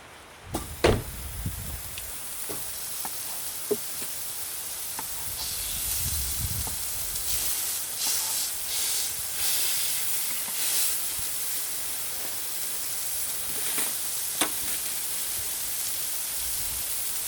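Food frying in a pan on a camp stove: a steady sizzle that starts about half a second in, with a few sharp knocks of a utensil or pan, the loudest about a second in.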